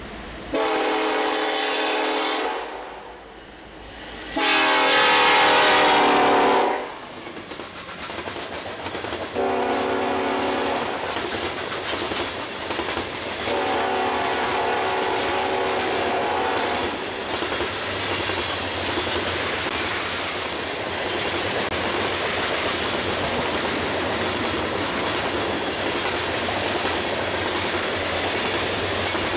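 Diesel locomotive air horn sounding four blasts of a several-note chord, long, long, short, long, the pattern of a grade-crossing warning. The second blast is the loudest. The horn gives way to the steady clatter and rumble of loaded coal hopper cars rolling past on the rails.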